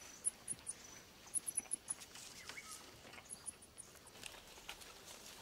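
Coati rooting through dry leaf litter on the forest floor: faint scattered rustles and crackles, with insects chirping high-pitched in quick runs of three to five pulses.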